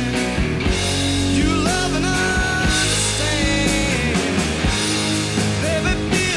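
Rock music with drums and sustained, gliding guitar or vocal lines, playing steadily.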